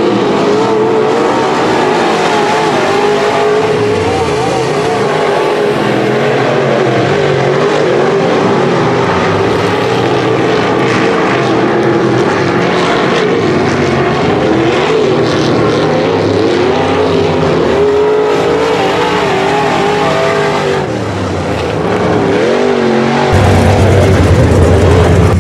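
Dirt-track modified race cars' V8 engines running flat out as they lap the track, several engines rising and falling in pitch as they accelerate and lift. Near the end a louder, steady low engine drone takes over.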